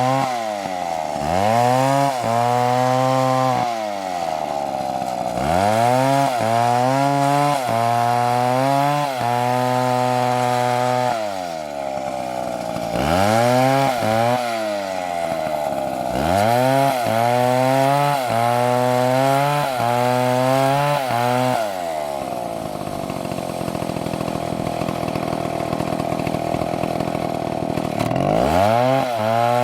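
Gasoline chainsaw cutting wood at high revs, its engine note dipping and recovering again and again as the chain loads up in the cut. For several seconds past the middle it settles to a lower, steadier note, then revs up again near the end.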